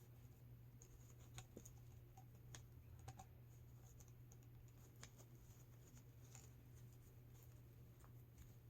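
Near silence: a low steady hum with scattered faint clicks and taps of small things being handled.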